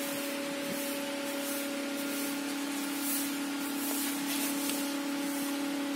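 Spindles of a two-spindle 1325 CNC router running, a steady whine with a hiss over it.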